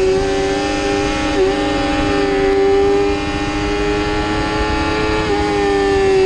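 Yamaha YZF-R6's 600 cc inline-four engine running hard at high revs under racing throttle. Its pitch stays nearly level, with brief dips about a second and a half in and again about five seconds in, over wind rush.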